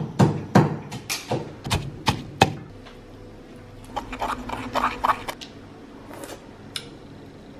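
Wooden pestle knocking in a mortar, pounding chili and garlic for a dipping sauce: a run of sharp, irregular knocks, then a second cluster about four seconds in.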